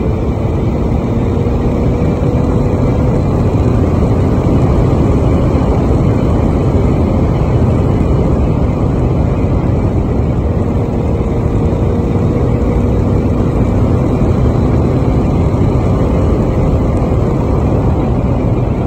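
Yamaha XSR900's inline three-cylinder engine running at a steady cruise on the road, mixed with heavy wind rush over the microphone at speed.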